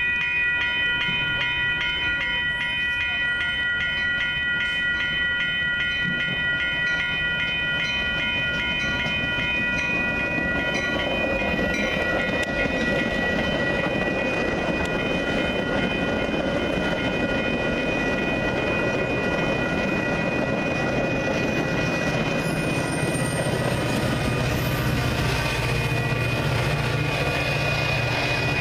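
Railroad crossing bell ringing steadily. From about a third of the way in, a Metra bilevel push-pull commuter train rolls past and its wheels rumble on the rails. Near the end, the train's EMD F40PH diesel locomotive at the rear rises in a low engine hum as it passes.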